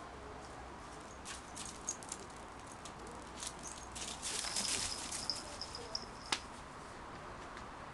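Faint crunching steps on a gravel garden path: a run of short scrapes and clicks that grows busiest past the middle and ends in one sharp click. A thin high steady note sounds over the busiest part.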